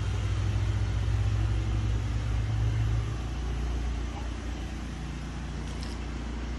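A motor engine running steadily at idle, a low even hum that drops a little in level about three seconds in.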